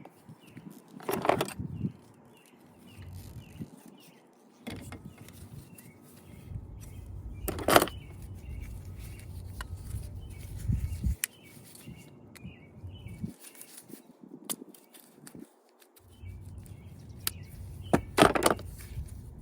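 Small birds chirping over and over, with a few short, loud bursts of scraping or handling noise, thin clicks, and a low rumble that comes and goes.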